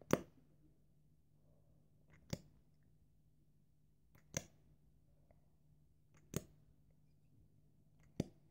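Lip gloss wand and tube making short, sharp clicks, five in all about two seconds apart, as the wand is dipped and applied layer after layer.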